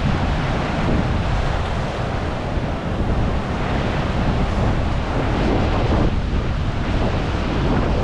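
Pacific surf breaking and washing among shoreline rocks, a steady rush that swells and eases, with wind buffeting the microphone.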